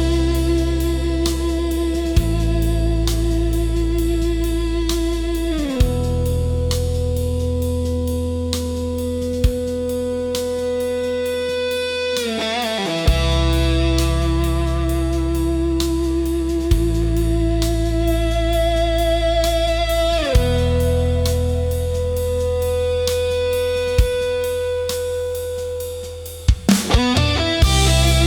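Instrumental psychedelic rock: sustained electric guitar notes over a slow bass line and sparse drum hits, the chords shifting down in slow cycles of about seven seconds. Near the end the music dips briefly before a short drum fill.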